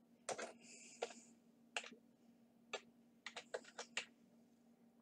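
Typing on a computer keyboard: about a dozen separate keystrokes at uneven spacing, several in a quick run near the end, over a faint steady low hum.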